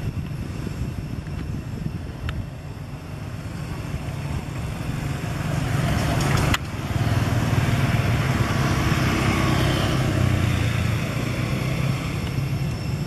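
A motor vehicle engine running steadily as a low rumble, growing louder and noisier from about halfway through, with one sharp click just before.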